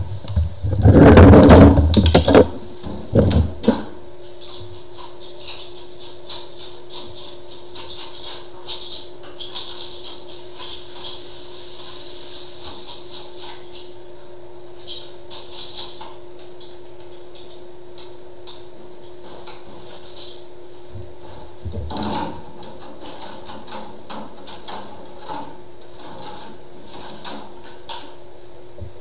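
High-pressure water jet blasting a restaurant grease trap, hissing and spattering with sharp knocks and clatter, over a steady hum. A loud rumbling burst comes about a second in, and another shorter one later.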